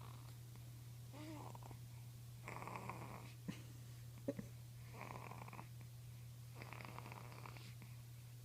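Soft, slow snoring: noisy breaths about every two seconds, over a steady low hum.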